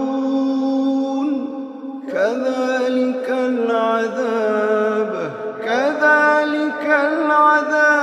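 A male reciter chanting Quran verses in Arabic, a melodic recitation with long held notes and slow ornamented glides. A new phrase starts with a rising sweep about two seconds in and another near six seconds.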